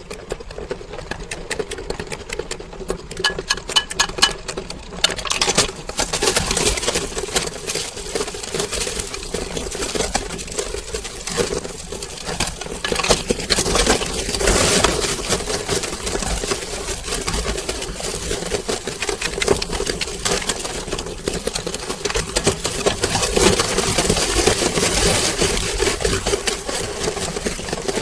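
Electric meat grinder running with a steady motor hum while hard lollipop candy cracks and crunches through it. The crackle grows denser and louder about five seconds in.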